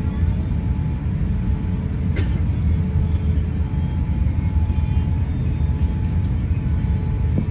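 Cabin noise of an Airbus A350-900 taxiing: the steady low rumble of its Rolls-Royce Trent XWB engines and the rolling airframe, heard from a passenger seat, with a faint steady hum above it. A single short click comes about two seconds in.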